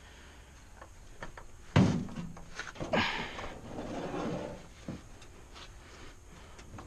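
Handling noise while working on the bike: a single loud knock about two seconds in, then a stretch of clattering and scraping, and a small click near the end.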